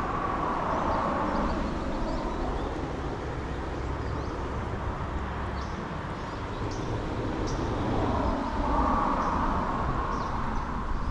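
Steady outdoor background noise that swells twice, at the start and again about eight seconds in, with small bird chirps throughout.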